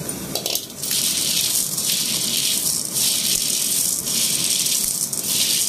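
Dry fusilli and elbow macaroni rattling and rustling in an aluminium bowl as hands sweep through it to mix them, in surges about once a second, over a steady hiss.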